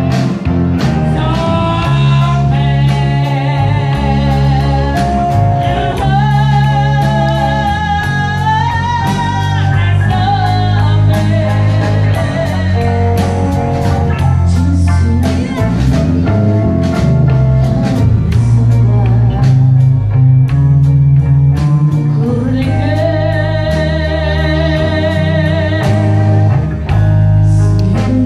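Live blues band: a woman singing with vibrato over electric guitar, bass guitar and drums. Her sung lines come in two stretches, with the band playing on between them.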